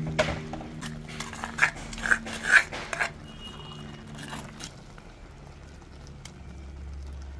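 Coconut-shell ladle knocking and scraping against a clay pot while stirring thick jackfruit curry, with several sharp clinks in the first three seconds and softer stirring after. A steady low hum runs under it and fades after about five seconds.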